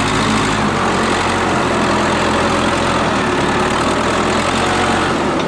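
A vehicle engine running at a steady speed, its note shifting slightly about a second and a half in and again near the end.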